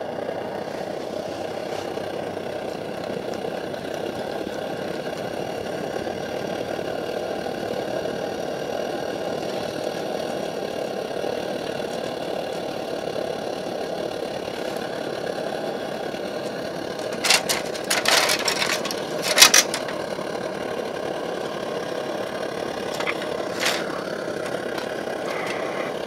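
MSR Dragonfly white-gas stove burning with a steady rush under a pot, a little fluttery, probably from too little pressure in the fuel bottle. A few sharp metal clicks and clatters come about two-thirds of the way through.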